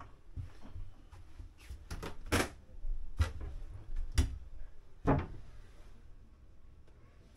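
Footsteps and knocks on a boat's hard interior floor and stair treads, with four sharp knocks standing out about a second apart in the middle.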